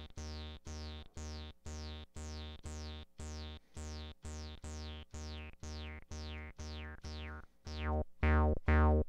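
Akai Rhythm Wolf's analog bass synth voice repeating one low note about twice a second, with full resonance, so each note carries a resonant filter sweep falling in pitch. As the filter envelope amount is turned up, the sweeps fall further and faster, and the notes get louder about eight seconds in.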